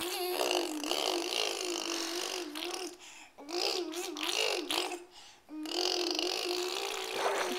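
Long, wavering vocal noises held near one pitch, in three drawn-out stretches with short breaks between them.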